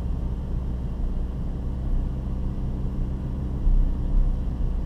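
Hyundai Tucson SUV moving slowly on light throttle, heard from inside the cabin: a steady low engine and drivetrain rumble, with a couple of heavier low bumps near the end.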